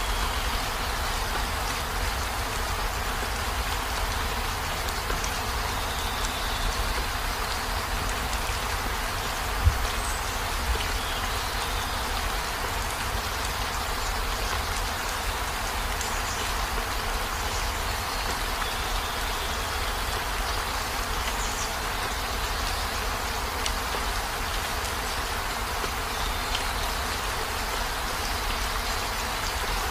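Heavy rain falling steadily on a van's roof and windows, a continuous even hiss over a deep steady rumble, with a couple of sharper drops about ten seconds in.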